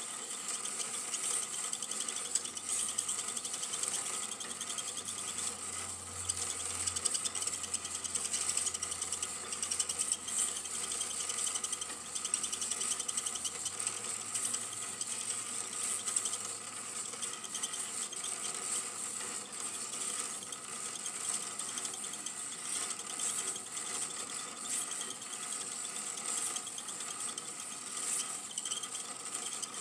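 Super 8 film projector running: a steady mechanical whir and clatter of the film transport.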